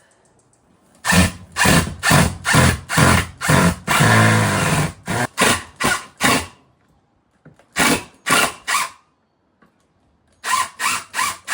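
Power drill driving screws into wood in short stop-start trigger bursts, about three a second, with one longer run about four seconds in that winds down in pitch. The drill keeps slipping in the screws, which the owner puts down to the drill not working properly.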